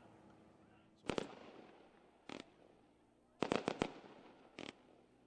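Fireworks going off: a string of sharp bangs, with a double crack about a second in, a single one, a quick run of four, then one more.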